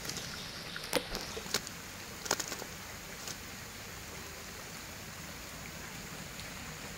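A steady even hiss, with a few sharp clicks in the first three seconds or so.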